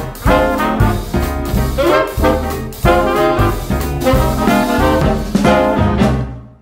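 Upbeat background music with a steady beat, fading out to silence near the end.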